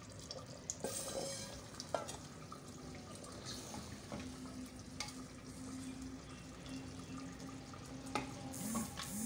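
Curry being served with a wooden ladle from a clay pot into a steel bowl: soft scattered clicks and knocks with wet scooping of the gravy. A faint steady hum runs underneath.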